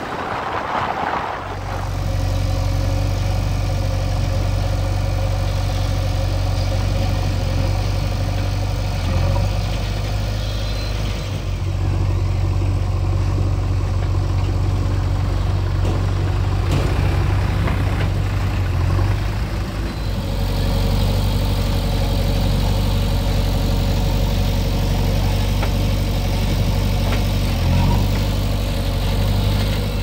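Diesel engines of farm tractors and a JCB 3DX backhoe loader running steadily at close range, a low even drone.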